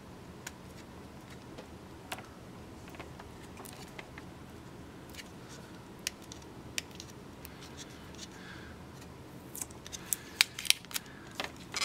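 Thin plastic protective film on a webcam being picked at and peeled with the fingers: a few scattered small clicks, then a quick run of sharper crackles and clicks near the end as the film comes loose.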